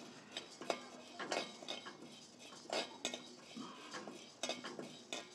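Split Bengal gram (chana dal) being poured into a heavy-bottomed metal kadai and stirred dry with a slotted metal spatula. Irregular scrapes and clinks of metal on metal come through, with the dry lentils rattling over the pan.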